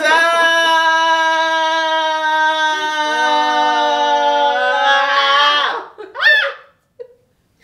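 Two women's voices holding one long sung note together, the second voice joining about three seconds in, a little lower in pitch. The note breaks off near six seconds, followed by a short vocal whoop that rises and falls in pitch.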